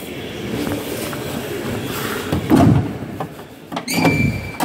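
A 1980 Ford Escort's bonnet being unlatched and lifted open: rustling handling noise, a dull thump about halfway through, then a sharp click and a clunk near the end.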